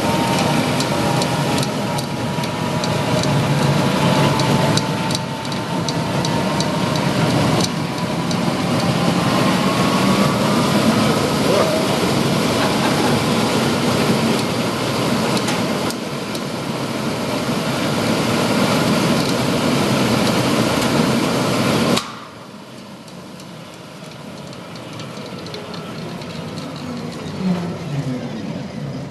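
1960s BF GUMP granulator, an industrial coffee grinder with an electric motor and roller burrs, running with a loud steady mechanical noise and a faint whine. About 22 seconds in the loud noise cuts off abruptly, leaving a much quieter steady hum.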